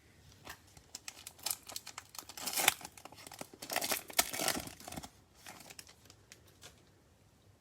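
Plastic wrapper of a 2021 Donruss Football trading-card pack crinkling and tearing as it is opened by hand, a run of short crackles and rustles over about five seconds that dies down near the end.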